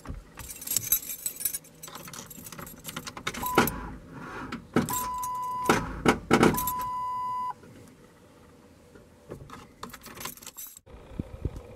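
A key ring jangling and clicking as the key is worked in the ignition of a Ford truck whose battery is dead. A steady electronic warning tone sounds three times, the last two lasting about a second each.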